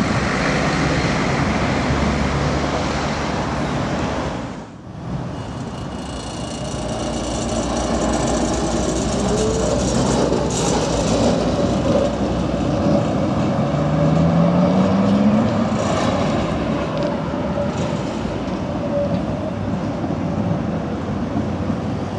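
Articulated tram running past on street track with a steady rumble and rolling noise over road traffic. Its drive gives a whine that rises in pitch twice, the second time more strongly, about two thirds of the way through.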